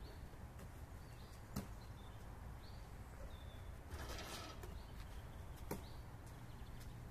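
A basketball on an outdoor asphalt court: two sharp smacks, about a second and a half in and near six seconds, as the ball bounces and is caught during rebounding and passing. There is a short rustle around four seconds, and small birds chirp faintly in the background.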